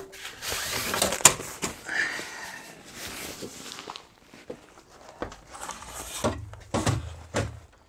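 Rustling and scraping of bagged camping gear being handled and pushed onto wooden shelves, with several knocks and thuds in the second half.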